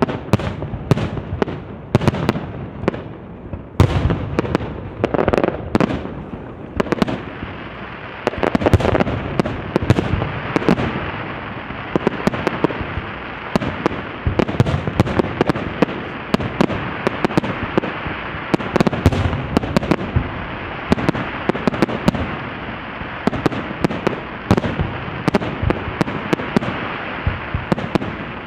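Starmine fireworks firing in a rapid barrage: overlapping bangs many times a second, joined by a continuous crackling from about seven seconds in.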